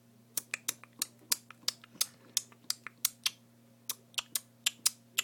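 Schindler 500A elevator's door-close pushbutton clicking as it is pressed rapidly over and over, about four irregular clicks a second, over a faint steady low hum. The presses do nothing: the door-close button does not work.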